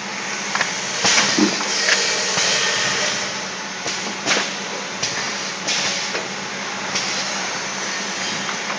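Automatic tray filling and sealing machine running: a steady hum and hiss with irregular clunks and clicks as its pneumatic stages cycle and sealed trays are pushed along the track.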